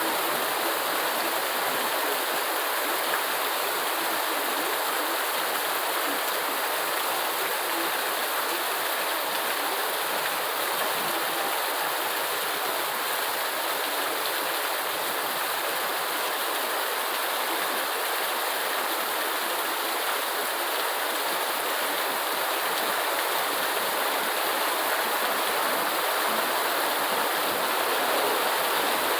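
Steady rainfall: a continuous, even hiss of rain with no breaks or changes.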